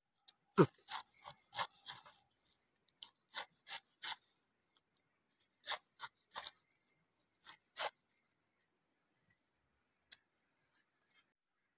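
A large knife slicing through a peeled pineapple held in the hand: about a dozen crisp cutting strokes in quick groups, stopping about eight seconds in.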